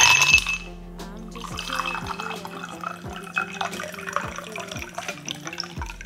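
Ice cubes tipped into a glass tumbler, clattering for about half a second, then tea poured from a pitcher, splashing as the glass fills. Background music plays throughout.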